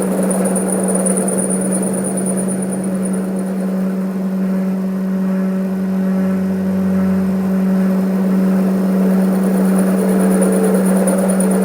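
Workshop machine motor running steadily, with a strong even hum and a high whine that fades about three seconds in and returns near the end.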